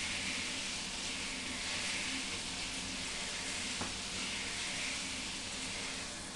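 Water spraying from a handheld shower head onto a gouache painting, washing the paint off the board: a steady hiss that swells and eases as the spray moves across the surface.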